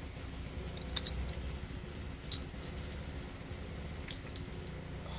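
A few light metallic clicks and clinks as an aluminium bicycle stem is turned over in the hand, about a second in, near the middle and again about four seconds in, over a steady low hum.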